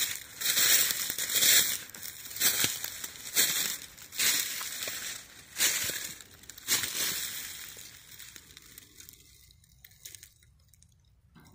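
Footsteps crunching through dry fallen leaves, about one step a second, dying away after about seven seconds as the walker stops.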